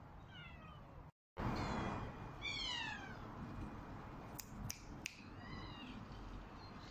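Cats meowing: a faint meow near the start, then after a brief break a loud meow sliding down in pitch, and a third, shorter meow that rises and falls, with a few sharp clicks between.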